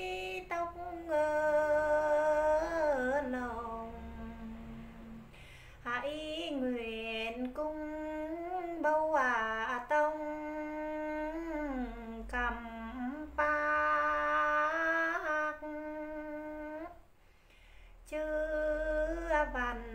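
A woman singing phong slư, the Tày folk letter-song, solo and unaccompanied. She holds long notes that waver and glide between pitches, with short breaks between phrases.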